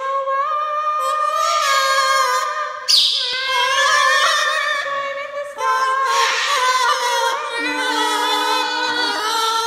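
Two green-winged macaws singing together in long, wavering held notes, their voices overlapping. A loud, harsher burst comes about three seconds in.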